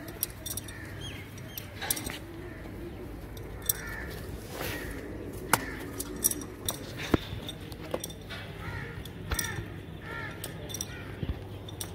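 Birds chirping in short bursts of calls, with scattered sharp clicks and taps throughout, the clicks being the loudest sounds.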